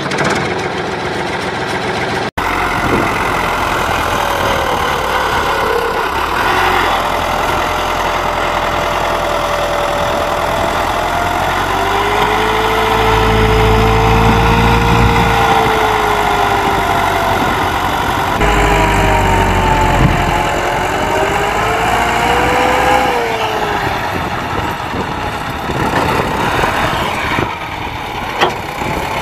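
Motor sound of a miniature tractor straining under a heavy brick-laden trolley: a steady running noise with a whining tone that wavers up and down. A deeper rumble comes in twice in the middle of the stretch.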